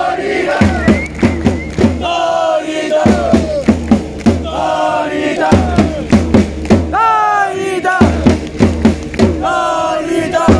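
Football supporters' crowd singing a chant in unison over a steady, regular drum beat.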